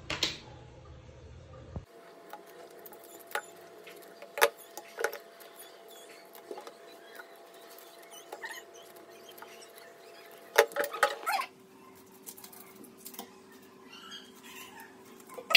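Kitchen scissors snipping and crunching through raw fish, heard as scattered sharp clicks with a dense cluster about ten to eleven seconds in, over a faint steady hum.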